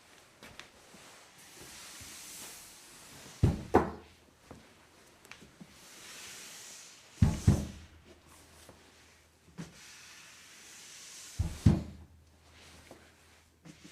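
Slide sound effect repeated three times: each is a soft swish of something sliding that ends in a heavy thump as it stops, about four seconds apart.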